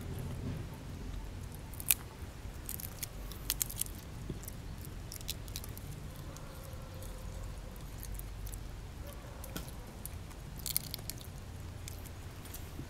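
Long-tailed macaque biting and chewing food held in its hands: scattered sharp clicks and crunches, the loudest about two seconds in and a small cluster near the end, over a steady low rumble.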